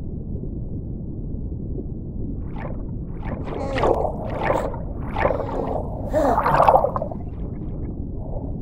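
Underwater ambience sound effect: a steady low rumble, with a run of short bubbling, burbling sounds from about two and a half to seven seconds in.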